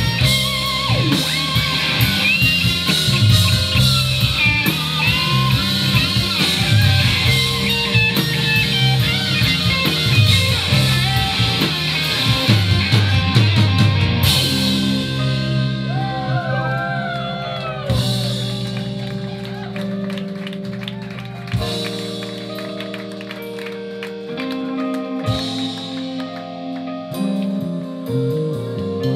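Live blues-rock band: an electric guitar lead with bent notes over drums, bass and busy cymbals. About halfway through, the drums and cymbals drop out, leaving held notes, a few guitar bends and scattered drum hits, a little quieter.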